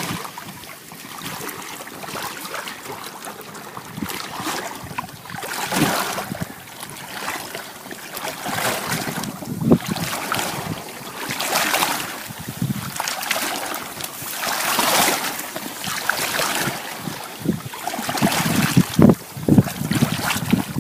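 Water sloshing and swishing in a shallow marsh as someone moves through it among dry cattails, in uneven surges every second or two, with wind buffeting the phone microphone. A few heavier splashes near the end.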